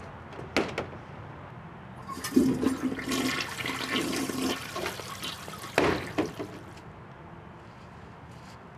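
A sharp knock as a door shuts, then a toilet flushing for about four seconds, rushing water with a steady tone under it, then another knock from a door near the end of the flush.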